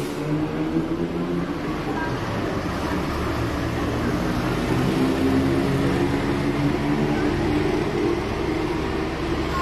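Traffic on a busy city street: a vehicle engine running close by over the hum of passing traffic, getting louder over the first few seconds.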